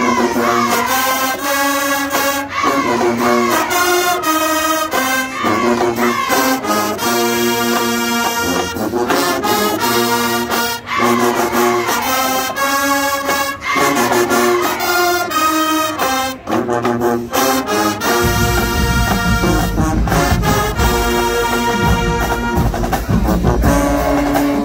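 High-school marching band brass section, sousaphones included, playing a tune in short rhythmic phrases. About eighteen seconds in, a deep low layer comes in under the horns.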